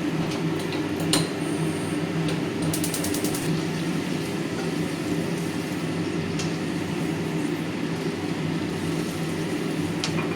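Kitchen range hood fan running with a steady hum. A few light clicks and a short run of rapid clicking come about three seconds in.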